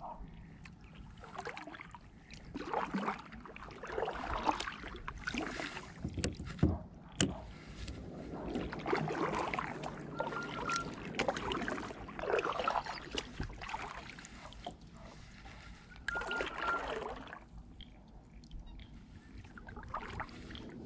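Kayak paddling: a double-bladed paddle dipping and pulling through calm water, with a swish of water every second or two and two sharp knocks about seven seconds in.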